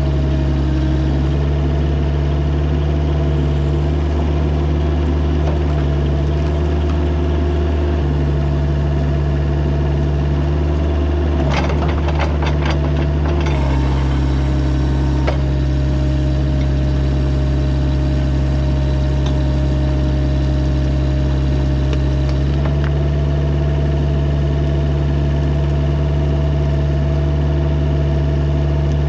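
Mini excavator's diesel engine running steadily, its note shifting slightly a few times. A short run of clanks and scrapes comes about twelve seconds in.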